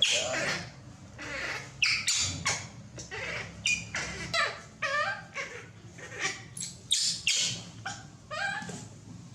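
Baby macaque monkey giving a rapid series of short, high squealing calls, many sliding down in pitch, about two a second.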